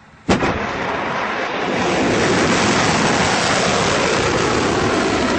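Two-stage solid-fuel ballistic missile launching: a sharp crack at ignition, then a continuous rushing roar of the rocket motor that grows louder about two seconds in.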